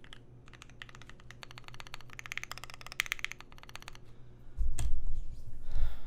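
Typing on a Keychron Q1 aluminium mechanical keyboard with lubed, filmed Pinoko switches and GMK keycaps, tape-modded with its poly-fil case stuffing removed: a fast, dense run of keystrokes. In the last second and a half a loud low rumble of handling noise covers it.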